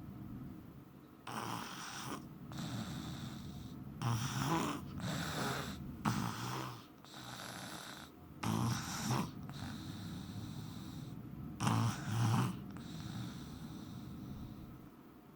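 A man snoring in his sleep: a run of rasping snores at uneven intervals, several coming in pairs of a louder breath and a softer one.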